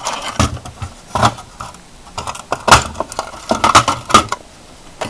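Handling noise from a plastic BRK 79DCRI smoke alarm: a quick run of clicks, taps and light rattles as it is turned over and opened, the loudest knock a little under three seconds in.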